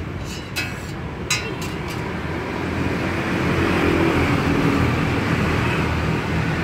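Road traffic noise swelling as a vehicle passes close by and staying loud. In the first second and a half there are two sharp metallic clinks of a spatula against the steel griddle.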